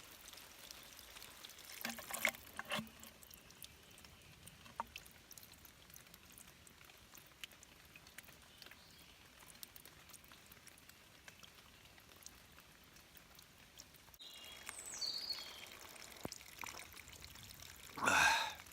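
Water trickling and pouring from a small spring, a steady faint flow with a few light knocks about two seconds in. The flow grows louder for a couple of seconds about fourteen seconds in.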